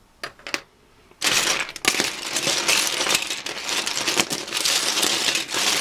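Loose plastic Lego bricks clattering as a hand rummages through a box of them: two small clicks, then from about a second in a continuous rattling of many pieces knocking together.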